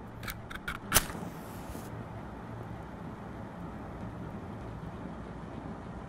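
A wooden matchstick struck against a matchbox: a few light scrapes, then a sharp strike about a second in and a brief hiss as the head flares. A steady low hum lies underneath.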